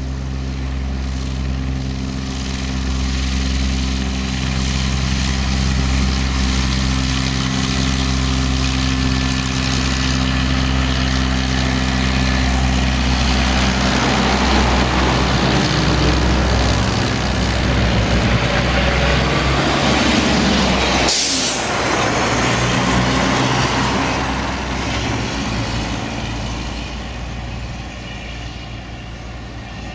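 Cessna A185F Skywagon's six-cylinder piston engine and propeller running at taxi power, a steady drone that grows louder as the plane passes close and fades as it taxis away. A brief whoosh comes about two-thirds of the way through.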